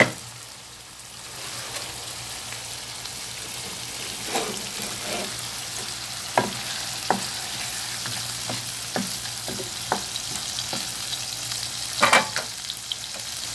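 Chicken livers sizzling as they fry in butter and oil in a pan, with a utensil scraping and knocking against the pan now and then as they are pushed aside, and a louder clatter near the end.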